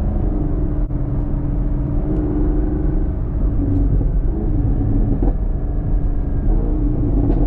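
2021 Camaro SS's 6.2-litre V8 and exhaust running steadily while driving, its pitch rising and falling slightly with throttle, with a few faint short pops and crackles from the exhaust.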